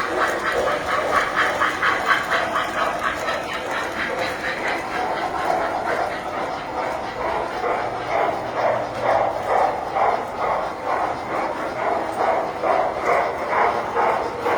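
Tinplate model trains running on the layout's track: a steady, fast, rhythmic clatter.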